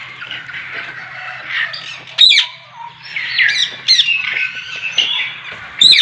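Caged parrots squawking and screeching, several sharp calls, the loudest about two seconds in and just before six seconds, over a faint steady low hum.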